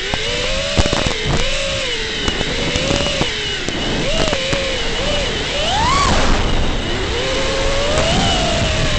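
FPV quadcopter's electric motors and propellers whining in flight, the pitch sliding up and down with the throttle and climbing sharply in a brief punch about two-thirds of the way through. A few sharp clicks come through over the whine.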